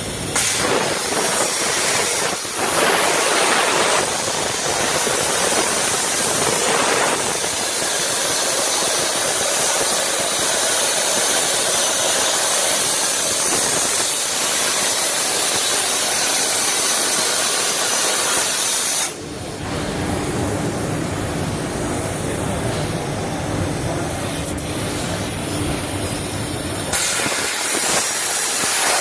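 Soitaab Omniatech heavy-plate machine running, with a loud, steady hiss and a faint high whistle. The sound drops abruptly and changes character about two-thirds of the way through, with a low hum joining in, then shifts again near the end.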